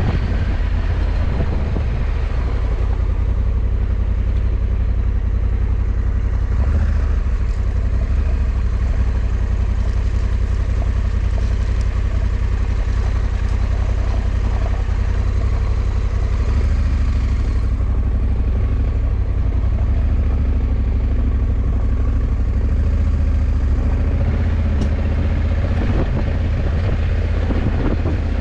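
Honda CRF1100 Africa Twin's parallel-twin engine running steadily at cruising speed, with a heavy low rumble of wind noise on the microphone.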